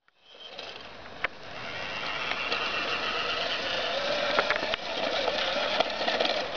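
Small electric motor and plastic gears of a wired remote-control toy fire truck whirring as it drives over paving stones, with a wavering whine and a few sharp clicks.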